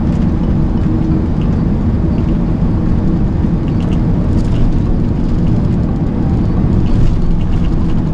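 Tractor-trailer engine and road noise heard from inside the cab: a steady low rumble while the truck drives in slow expressway traffic.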